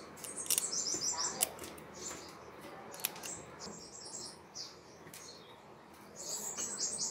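A small bird chirping in three quick runs of short, high notes, with a few faint clicks between them.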